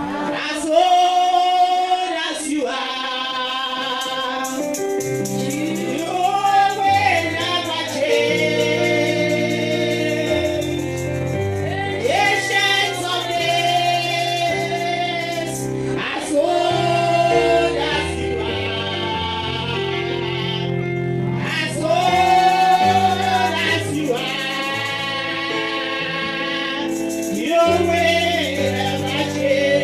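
A woman singing a gospel song into a microphone, backed by instruments whose low bass notes come in about five seconds in.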